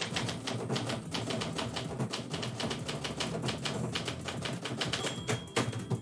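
Manual typewriter being typed on at a steady pace: a rapid, uneven run of sharp key strikes as the typebars hit the paper on the platen.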